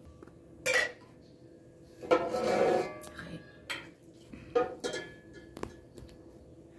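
A metal ladle clinking and scraping against an aluminium pot and steel bowls as a thin sauce is ladled out: a handful of separate clinks, with a longer, louder scrape about two seconds in.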